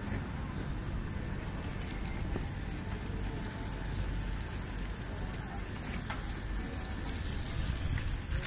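Wind on a phone's microphone: a steady low rush with crackling.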